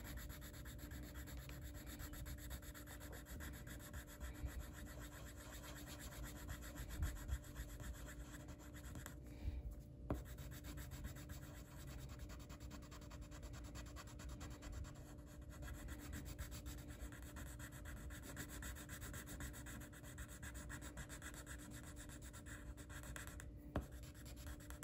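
Pencil shading on paper: rapid back-and-forth strokes make a faint, steady scratchy rubbing as a small area is filled in dark. A couple of light ticks come in the middle and near the end.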